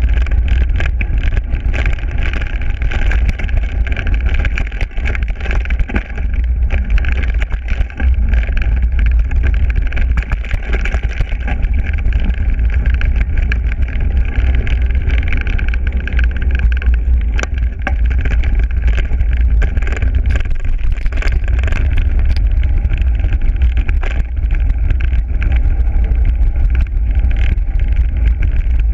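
Mountain bike riding fast over a dirt forest trail, heard from a handlebar-mounted action camera: a steady, loud rumble of tyre noise and wind buffeting the microphone, with frequent small clicks and rattles as the bike goes over bumps.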